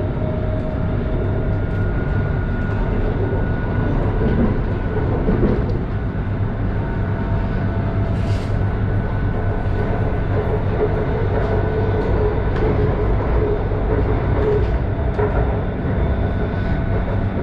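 A BTS Skytrain electric train running, heard from inside a carriage: a steady rumble of wheels on the track with the steady whine of the traction motors over it, and a few faint clicks.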